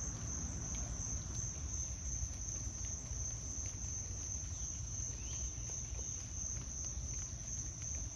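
Steady, high-pitched trilling chorus of insects, unbroken throughout, with a low rumble underneath.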